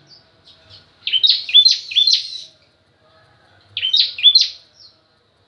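Bar-winged prinia (ciblek kristal) singing. Two bursts of quick, repeated high chirps come about a second in and again near four seconds, each lasting about a second and a half, with a few faint notes before the first.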